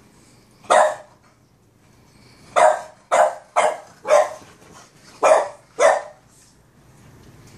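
A Boston Terrier barking: one bark about a second in, then a quick run of six barks.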